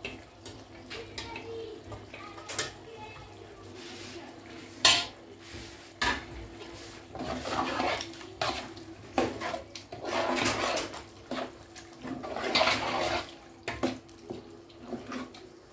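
A spoon stirring meat stew in a large aluminium pot: wet stirring and scraping in stretches, with sharp knocks of the spoon against the pot, the loudest about five seconds in.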